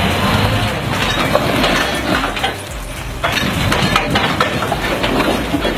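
Wood chipper chewing through wood: a steady machine noise with dense cracking and clattering. It dips for a moment and then comes back abruptly just past halfway.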